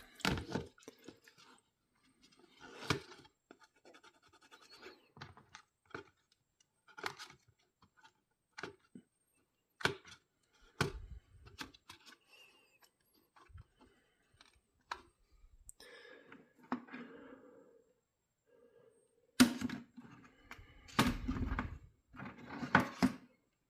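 Metal stove-hood grease filter grates being handled and wiped: scattered knocks, clicks and short scrapes at uneven intervals, busier near the end.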